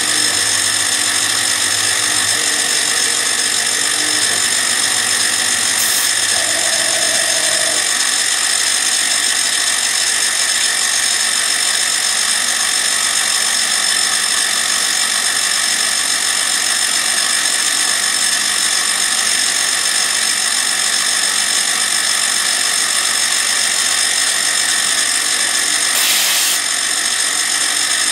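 PM25-MV CNC milling machine with an end mill cutting a pocket in aluminum: a steady high-pitched whine of several tones over the noise of the cut. A brief hiss comes about two seconds before the end.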